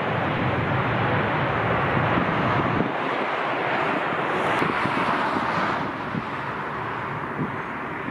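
Jet airliner engine noise, loudest about four to six seconds in and then dropping away, with gusting wind buffeting the microphone.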